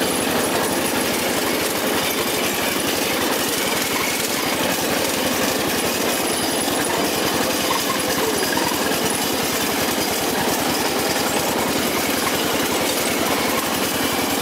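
Riding lawn mower's small engine running steadily as the mower drives along, with a fast, even putter.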